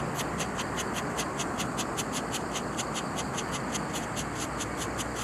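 Night insects chirping in a steady, fast pulse, about seven chirps a second, over a steady background rush of noise.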